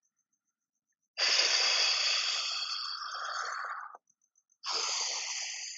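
A man's two long, audible breaths: the first lasts about three seconds and slowly fades, the second is shorter and starts about half a second after the first ends.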